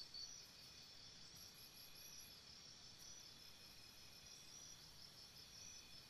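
Faint chorus of calling insects: several steady high-pitched trills overlap, and a pulsing chirp stops a fraction of a second in. A brief, higher trill comes in about a second and a half in and lasts under a second.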